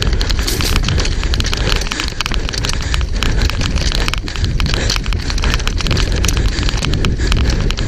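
Wind buffeting the microphone over tyres crunching and skidding on a loose, rocky dirt trail, with constant clicking and rattling from a Specialized Demo 8 downhill mountain bike bouncing over the rough ground at speed.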